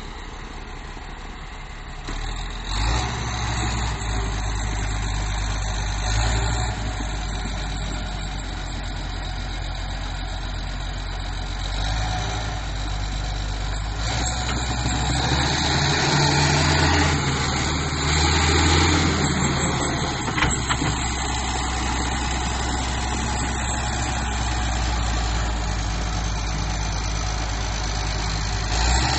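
Diesel engine of a crawler bulldozer running while working. It gets louder about two and a half seconds in and is at its loudest for several seconds around the middle.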